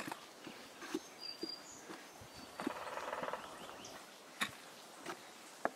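Footsteps on steep stairs, knocking faintly now and then, over outdoor quiet with faint bird chirps. About two and a half seconds in comes a short, rapid drumming burst of just under a second, which fits the giant woodpecker (pileated woodpecker) heard on the trail.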